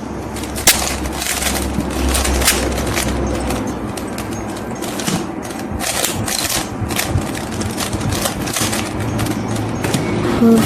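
Plastic Rubik's cube being turned by hand: the layers click and rattle in irregular runs of sharp clicks as it is solved.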